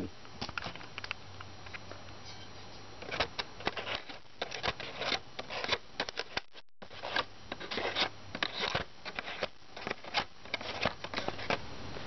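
Plastic bottle of dried pea seeds being handled, giving irregular clicks and crackles of the plastic and the peas shifting inside.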